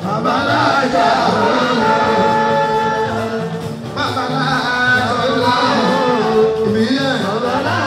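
Music with a singing voice, loud and continuous, the voice gliding up and down in pitch over the instruments.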